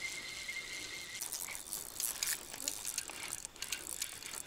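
Spinning reel being cranked to retrieve a lure, a run of irregular ticking clicks starting about a second in. Before that a steady high tone.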